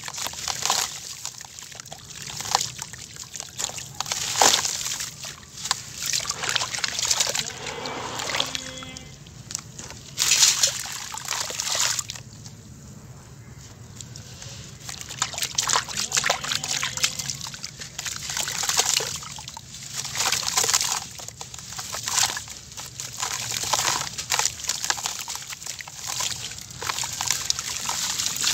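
A dry, gritty lump of grey mud crumbled by hand, its grit and powder pouring and splashing into a basin of water in repeated gritty swells, with a quieter lull about halfway through.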